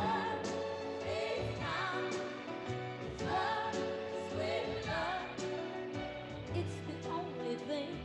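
Music with a singing voice that wavers in pitch, over held low notes.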